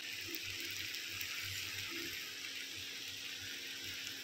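Steady hiss of food frying on a kitchen stove, with a few soft low thumps.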